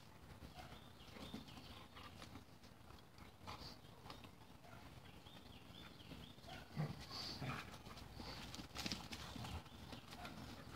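Two dogs play-wrestling on bare dirt: paws scuffling and thudding as they rear and tussle, in irregular soft knocks, with a sharper thump about two-thirds of the way through.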